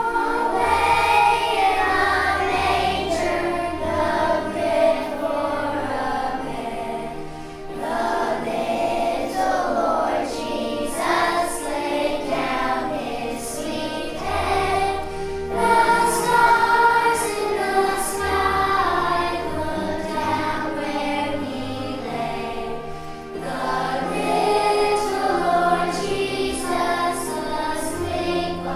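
Children's choir singing a song with instrumental accompaniment that carries sustained bass notes.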